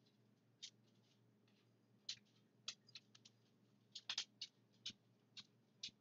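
Faint, irregular little clicks and scratches of a metal crochet hook and yarn as double crochet stitches are worked, about a dozen in all, bunched together about four seconds in.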